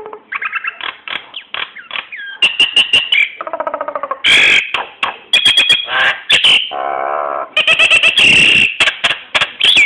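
Nias hill myna calling in a rapid, varied run of loud whistles, sharp clicks and harsh squawks, with a wavering warble midway.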